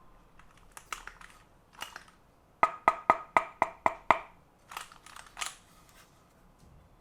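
Keychron Q2 mechanical keyboard keys pressed in a quick run of about seven sharp clicks, roughly five a second, each with a short ringing tone. Softer handling clicks and rustles come before and after it.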